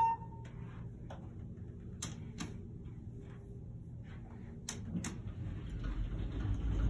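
Passenger elevator after the floor-1 button is pressed: a few sharp clicks and ticks from the car and its doors, over a low hum that grows near the end as the car gets under way.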